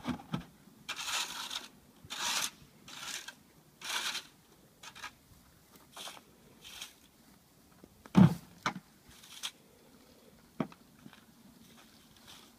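A young Friesian horse tugging mouthfuls of dry hay from a round bale: rustling, tearing rasps in a run of short bursts, most of them in the first half. A single loud low thump about eight seconds in, followed by a few sharp clicks.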